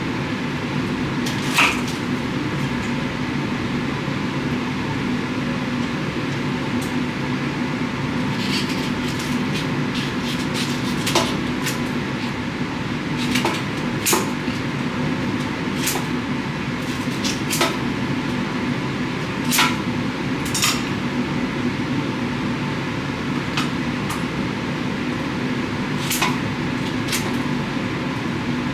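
Knife and cutting-board knocks and clicks as an artichoke is trimmed and its leaves pulled off, about a dozen short sharp sounds spread irregularly. Under them runs a steady low hum.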